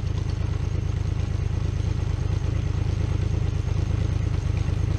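2003 Honda VFR's V4 engine idling steadily in gear on the center stand, turning the rear wheel and the freshly tightened drive chain to warm the chain before lubing.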